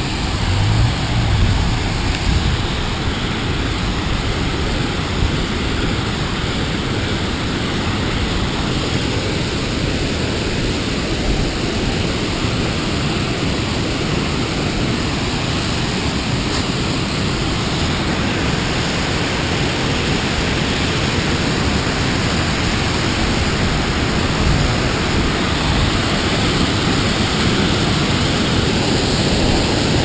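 Waterfall and stream water rushing: a steady, even roar of noise that grows a little louder and brighter near the end.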